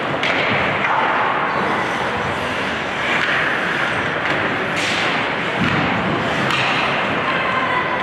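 Ice hockey play on the rink: a steady scraping haze of skates on the ice, broken by sharp knocks of sticks and puck. The loudest knocks come about five seconds in and again about six and a half seconds in.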